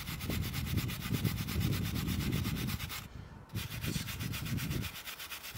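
Worn hand wire brush scrubbing a steel Range Rover P38 brake caliper carrier in quick back-and-forth strokes, cleaning the pad contact patches, with a brief pause about three seconds in.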